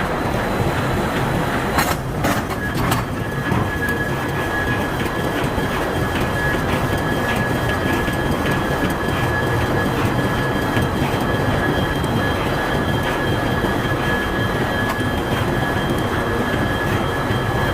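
Forge machinery running steadily, a loud rumble with a constant high whine, and two sharp knocks about two and three seconds in.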